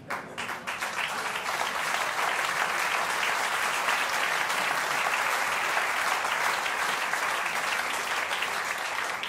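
Live audience applauding, a dense crackle of many hands clapping that starts suddenly, swells over the first couple of seconds and then holds steady.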